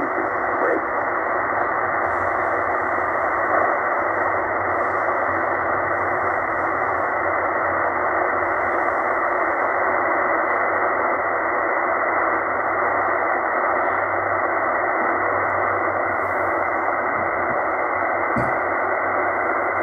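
Tecsun H-501x shortwave receiver tuned to 7268 kHz lower sideband, giving out a steady rushing static with no voice coming through. The static has no highs, cutting off sharply above about 2 kHz.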